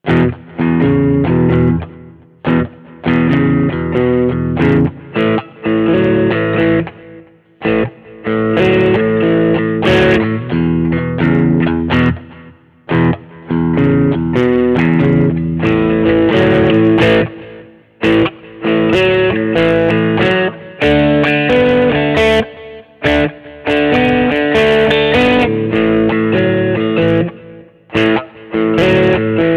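Schecter Omen 6 six-string electric guitar played through an amplifier: chords and riffs, chopped by many short, sudden stops where the strings are muted.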